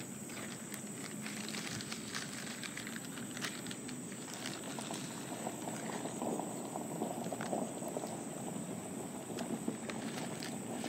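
Canada geese and mallards feeding at the water's edge: a busy run of small clicks and crackles from bills pecking and nibbling, over a steady high insect drone.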